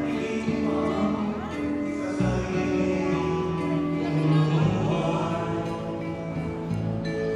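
A slow song playing, with long held notes and a singing voice.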